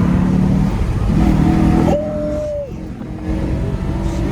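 Acura TL's V6 breathing through an open custom cold air intake, pulling under throttle. About two seconds in the sound drops off for roughly a second, then the engine picks back up.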